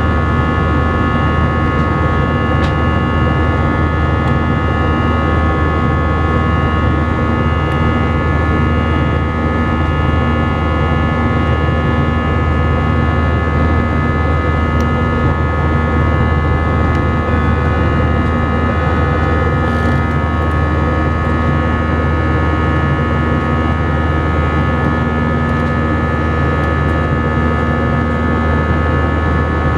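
Airbus A319 cabin noise in flight: the steady drone of the jet engines and rushing airflow, with several steady whining tones over it.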